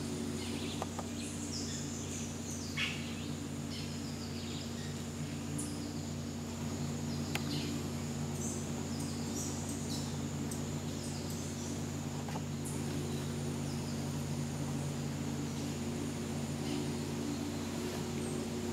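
Scattered short, high bird chirps, many falling in pitch, over a steady high insect drone, in tropical forest. A steady low mechanical hum runs underneath and is the loudest part.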